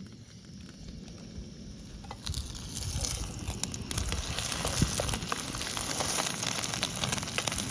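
Dense crackling and sizzling that starts about two seconds in and grows louder, over a low wind rumble.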